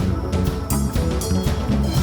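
A funk band playing an instrumental passage with no singing, over a steady beat.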